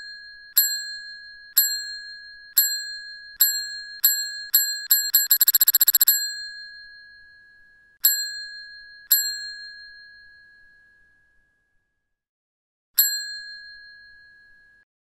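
A bell sound effect: one bright ringing pitch struck again and again, the strikes coming faster until they run into a quick trill about five seconds in. Then come two more dings, a pause, and one last ding that rings out.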